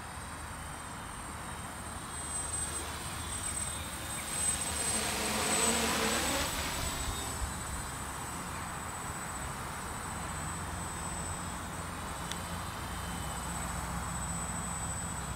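A quadcopter's brushless electric motors and propellers buzzing as it flies past. The buzz swells to its loudest about six seconds in, then settles to a steadier hum once the craft is farther off.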